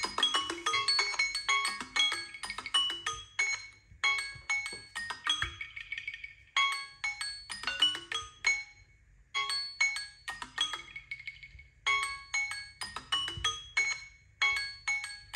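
Smartphone alarm or timer tone: a quick melody of short, bright struck notes, repeated in phrases with brief pauses between them.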